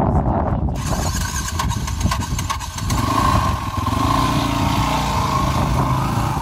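Yamaha WR450F four-stroke single-cylinder dirt bike engine running under throttle, its revs rising and falling as the bike is worked through the pothole.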